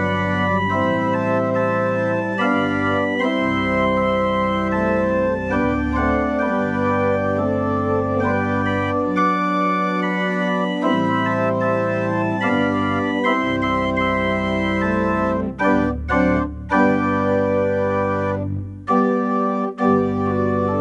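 Organ playing slow, sustained chords over deep held bass notes, with a few brief breaks between chords near the end.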